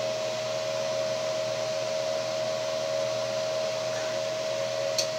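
Cooling fan of a running glass-tube linear amplifier, a steady whoosh with a constant mid-pitched whine; one small click near the end.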